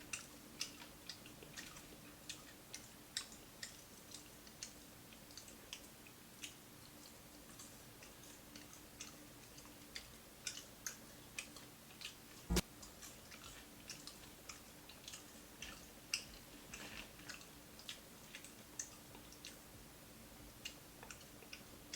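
Close-miked eating of crispy fried fish: soft chewing with scattered sharp crunches and wet mouth clicks, irregular throughout. One louder knock about twelve seconds in.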